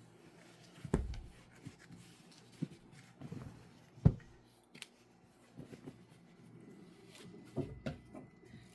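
Quilting fabric pieces being handled and set down on a table: soft rustling with scattered light knocks, the sharpest about four seconds in.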